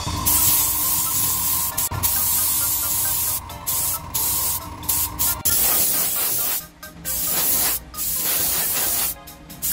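Paint being sprayed onto small plastic model kit parts: a hiss that stops and restarts between passes, with short breaks several times in the second half.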